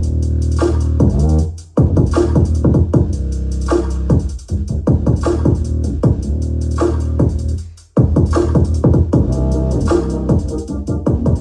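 Electronic music with a drum-machine beat and heavy bass, played through a Creative Sound Blaster Katana SE soundbar. It drops out briefly about two seconds in and again about eight seconds in.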